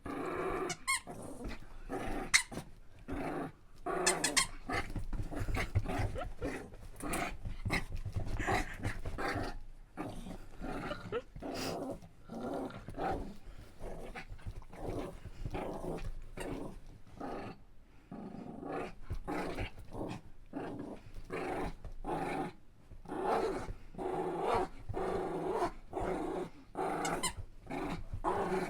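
Dog growling in play, on and off throughout, while tugging at a toy, with short sharp knocks and scuffles in between the growls.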